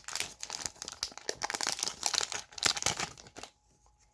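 Wrapper of a hockey trading-card mystery pack being torn open and crinkled by hand, a dense crackle that stops about three and a half seconds in.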